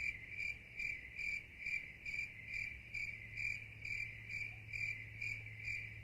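Cricket chirping, an even, regular chirp repeated about two and a half times a second, over a low steady hum.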